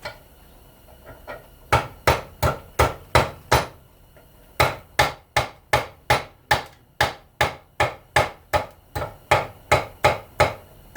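Hammer blows on parts of a small electric fan motor being stripped for its copper, struck in a steady rhythm of about two to three a second: five quick blows, a short pause, then a long unbroken run.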